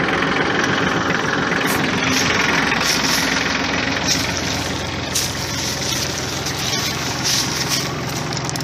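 Massey Ferguson 1433 compact tractor's diesel engine running steadily at idle, with a few scattered short clicks over it.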